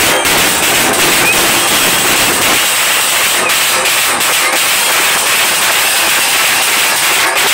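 A group of large drums being beaten hard and continuously, so loud and close that the drumming blurs into a dense, distorted roar.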